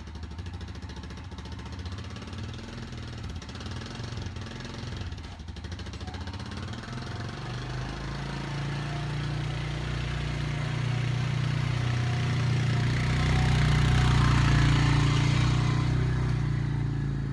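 Four-wheeler (ATV) engine running steadily as it is ridden, getting louder about halfway through.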